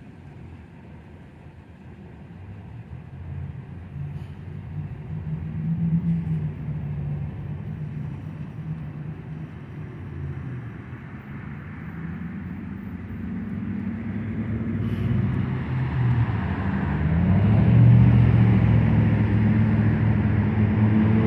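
Road traffic passing: car engines and tyre noise. It swells about six seconds in, then builds through the second half as a louder vehicle comes close, its engine note rising slightly near the end.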